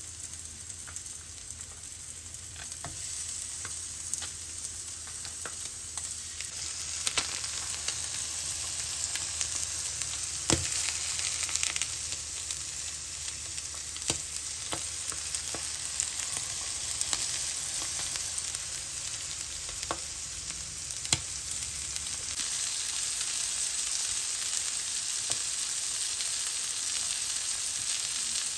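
Sea bass and salmon fillets and king prawn skewers frying in oil on a griddle pan: a steady high sizzle with scattered sharp crackles of spitting fat.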